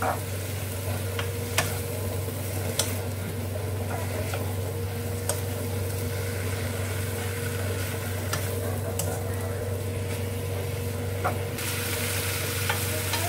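Bok choy sizzling as it is stir-fried in a pan, with the spatula clicking and scraping against the pan about once a second.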